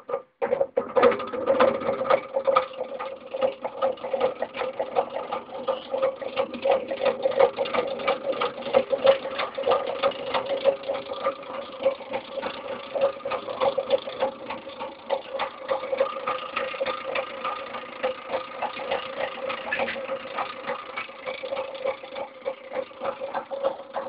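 Small homemade reed-switch magnet motor running, a steady hum with a fast, dense clatter of clicks, after a brief break just at the start.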